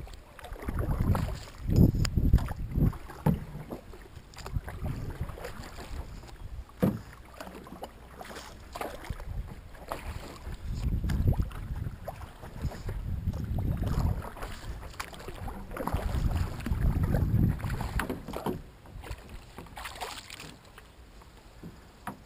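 Canoe being paddled: paddle strokes surging through the water in swells every few seconds, with a few sharp knocks against the canoe and low wind rumble on the microphone.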